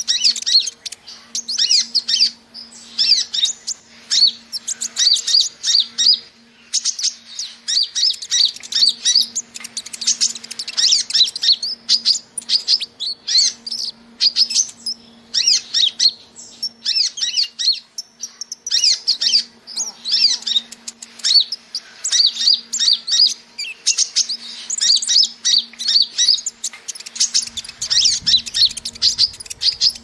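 Van Hasselt's sunbird (kolibri ninja) calling: quick runs of high, thin chirps in short bursts, repeated one after another, as on a lure-call recording. A faint steady hum lies beneath.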